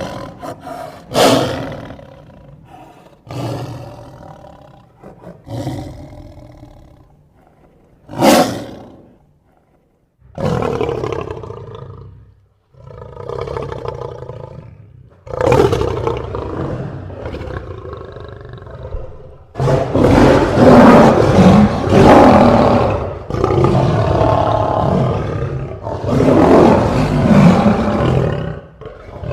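Lions roaring: a string of separate roars with short pauses between them, then from about halfway a louder, longer run of roaring that hardly pauses.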